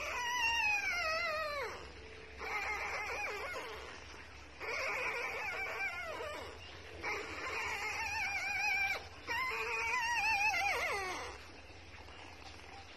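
Newborn beagle puppy crying: five long, high, wavering squeals with short breaks between them, the first and last sliding down in pitch as they end.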